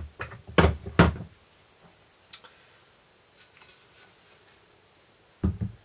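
A few sharp knocks and clunks as a cast alloy transfer-box output housing with its shaft fitted is handled, three in the first second, then a faint click and one more knock near the end.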